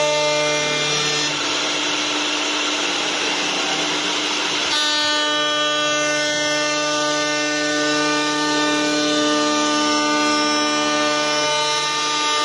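CNC wood turning lathe running, its motors giving off a steady whine of several held tones. From about a second and a half to about five seconds in, a rough hiss of wood cutting rises over the whine.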